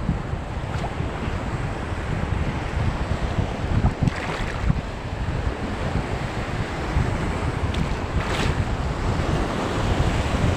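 Wind buffeting the microphone in gusts over the wash of sea waves, with a couple of brief hissing swells about four and eight seconds in.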